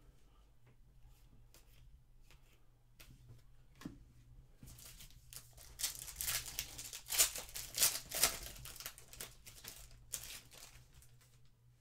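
A foil trading-card pack (2023 Panini Legacy football) being torn open and crinkled by hand: a few faint card-handling clicks, then several seconds of crackling tearing and crinkling, loudest about halfway through, with a last crinkle near the end.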